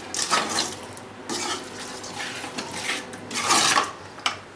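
A metal spoon scraping and clanking in a cooking pot in a series of uneven strokes as cooked chicken is mixed with herbs.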